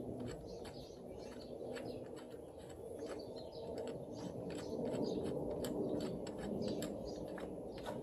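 Irregular small clicks and taps of hand tools and parts being handled while fitting a belt tensioner pulley, over a steady low hum.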